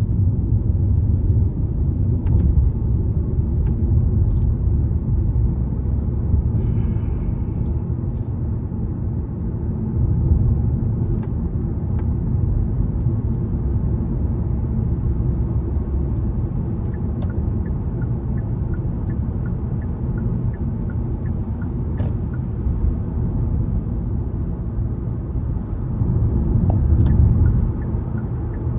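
A car driving on city roads: a steady low rumble of engine and tyre noise. There is a brief hiss about seven seconds in, and faint regular ticking later on.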